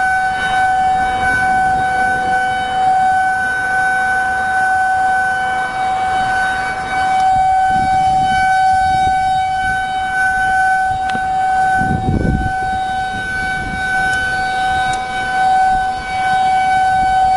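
Outdoor tornado warning siren sounding one steady, unbroken tone, its loudness wavering slightly. A brief low rumble comes about twelve seconds in.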